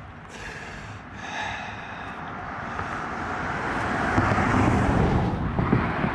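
A car passing close by on the road: its tyre and engine noise swells over several seconds to a peak and falls away near the end.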